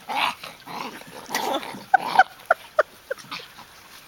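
Dogs at rough play: a few rough, noisy dog sounds, then about two seconds in a quick string of about six short, high yelps typical of a dog being frightened by a pushy puppy.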